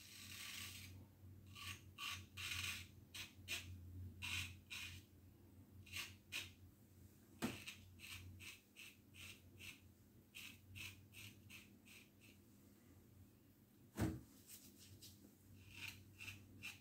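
Single-edge lather catcher safety razor with a GEM Blue Star blade scraping through lathered stubble in short, quick strokes, several per second in runs. Two sharper knocks stand out, about halfway through and again near the end.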